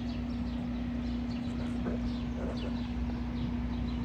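Small birds chirping, many short quick calls falling in pitch, over a steady low hum.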